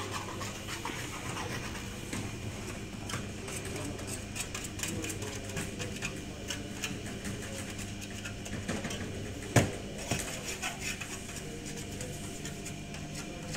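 Bakery workroom clatter: a steady low hum under scattered small clicks and scrapes of utensils on stainless steel, with one sharp loud knock about two-thirds of the way through.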